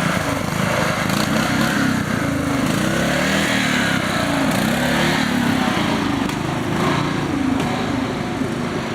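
An engine running steadily, its pitch rising and falling in slow swells about once a second.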